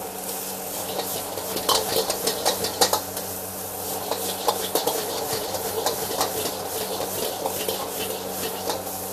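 Fried rice being stirred and tossed in a wok: a utensil scraping and knocking against the pan in quick, irregular strokes, with a run of sharper knocks about two to three seconds in, over a steady sizzle and a faint low hum.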